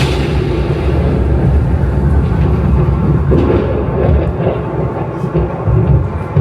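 A loud, deep, steady rumble with little high sound, most likely a low rumbling effect in the show's soundtrack over its sound system.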